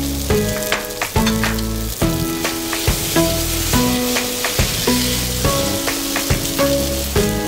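Pad thai noodles sizzling as they are stir-fried in a hot nonstick pan, with sharp clicks of the utensil against the pan, over background music with a melody and bass line.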